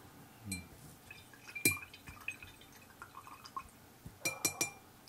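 A paintbrush being rinsed in a glass water jar: light clinks against the glass, each with a short ring, one about a second and a half in and a quick run of four near the end, with small ticks between.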